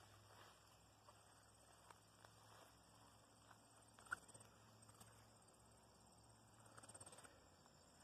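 Near silence: faint outdoor ambience with a faint high insect trill, like a cricket, and a few soft ticks and rustles of brushing through plants a little before the end.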